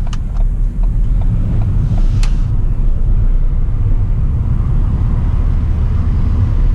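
Ford New Fiesta on the move, heard from inside the cabin: a steady low rumble of engine and road noise, with a sharp click about two seconds in.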